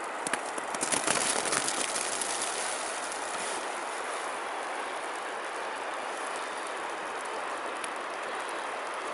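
River water rushing in a steady wash of noise, louder and crackly for about two seconds near the start.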